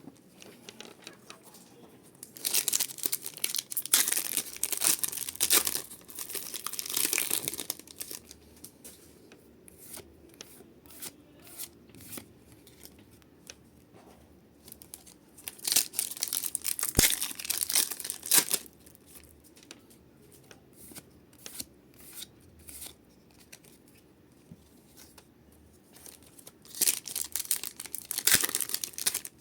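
Pokémon card booster packs being torn open, their foil wrappers crinkling, in three bursts of tearing. Scattered light clicks come between the bursts.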